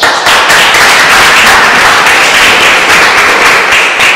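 Audience applauding loudly, starting suddenly and stopping near the end.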